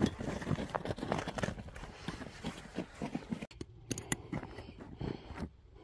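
Bell tent fabric rustling under gloved hands, with snow crunching underfoot, in a run of irregular crunches and rustles. About halfway through, this gives way to sparser clicks and scrapes of a metal tent stake being pushed through the tent's ring into snowy ground.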